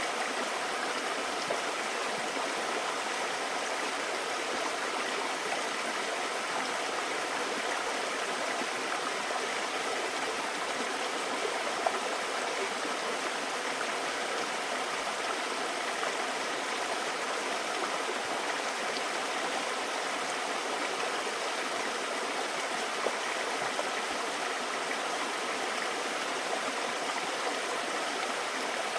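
Mountain valley stream flowing steadily, an even wash of running water with no let-up. One brief tick stands out about twelve seconds in.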